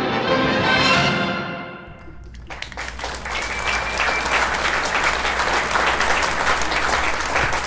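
A woman's sung final note held over an orchestral accompaniment, ending about two seconds in, followed by an audience applauding.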